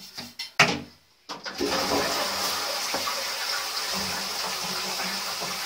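Toilet flushing: water runs steadily from about a second and a half in, after a few sharp knocks near the start.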